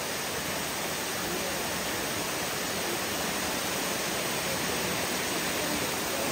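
Steady rushing of Amicalola Falls, water running and splashing over rock slabs at the head of the waterfall.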